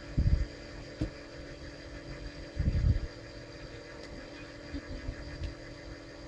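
Handling noise from spiking a paper firework shell by hand: two dull low thumps as the shell is turned and knocked, with faint clicks of the string being pulled taut. A steady mechanical hum runs underneath.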